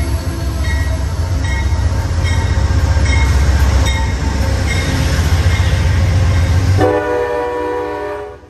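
Amtrak passenger train passing close by at speed: a heavy rumble with the wheels clicking regularly over the rail joints. About seven seconds in, a locomotive horn sounds a multi-note chord for a second and a half, then the sound cuts off suddenly.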